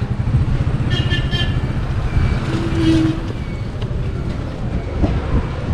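A motor vehicle engine running with a steady low rumble, with a short, steady tone near the middle.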